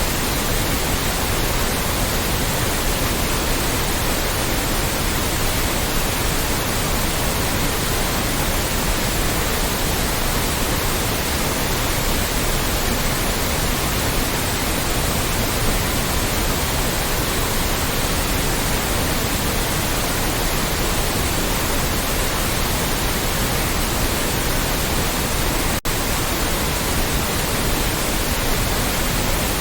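Loud, steady white noise: an even hiss spread across all pitches, with no tones or rhythm. A split-second dropout comes near the end.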